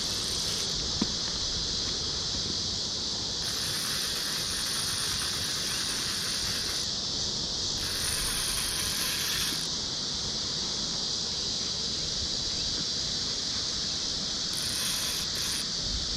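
Insects in a steady, high-pitched chorus. A second, higher buzzing comes and goes in stretches of a few seconds. A single sharp click sounds about a second in.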